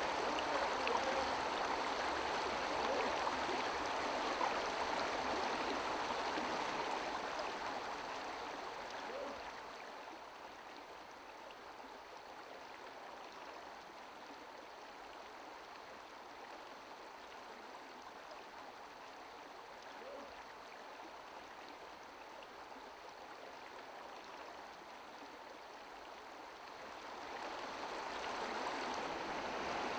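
River water flowing: a steady rush that drops away about eight to ten seconds in and swells back up near the end.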